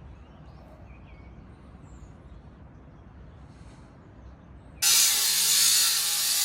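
Quiet background with a few faint chirps, then about five seconds in a loud, steady, hissing machine noise starts abruptly, likely a power tool being switched on.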